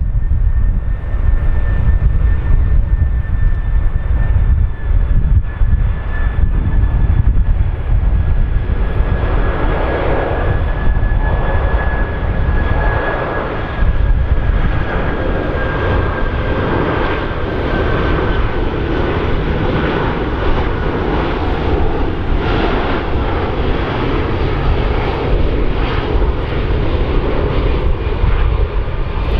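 Four-engined Boeing 747-400ER jet airliner on final approach with gear down. Its engines give a steady rumble and a high whine that slowly falls in pitch, with the jet's roar swelling as it draws nearer.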